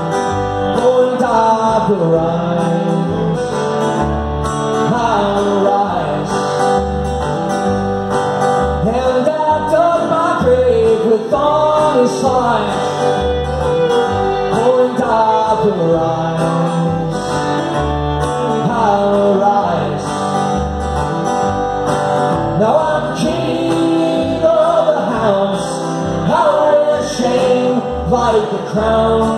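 Live country-folk song played on a bowed fiddle and a strummed acoustic guitar, with a man singing the melody over them.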